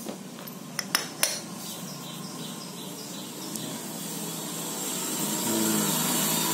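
Metal clinks, three sharp ones about a second in, as the self-starter motor's cast end housing is set down on a concrete floor among loose bolts and parts. A rushing noise swells toward the end.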